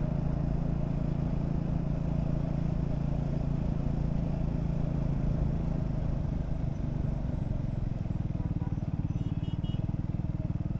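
Triumph Speed 400's single-cylinder engine running under way with a steady hum. About two-thirds of the way through the note drops and turns into an even, pulsing beat as the bike eases off.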